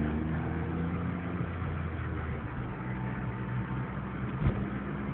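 Smart car's engine running with road noise from inside the cabin while driving; the engine note drops to a lower pitch about halfway through. A single sharp knock sounds near the end.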